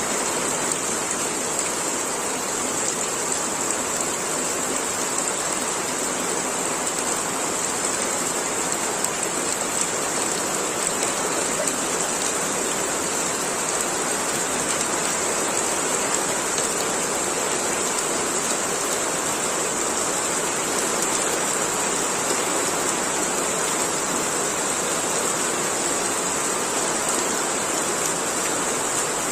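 Steady rain falling, an even unbroken hiss with no single drops or breaks standing out.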